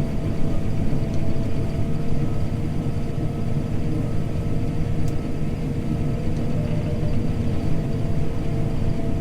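John Deere T670i combine harvester running steadily as it works through tough wheat straw: a constant low drone with a few faint steady whines over it.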